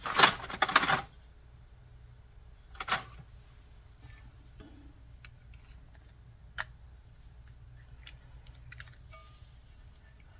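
Small metal tools clattering and clicking against a small-engine carburetor while a stuck brass jet in its soft body is worked loose: a loud clatter in the first second, then sparse sharp clicks every second or two over a faint low hum.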